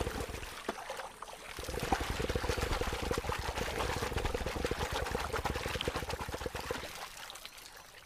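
Water spattering in a rapid, dense patter as a male yacare caiman's body vibrations during its courtship display throw droplets up off the water around its back. The spattering dies away near the end.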